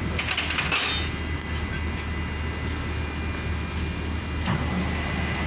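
A steady low engine hum, with a few light clatters in the first second.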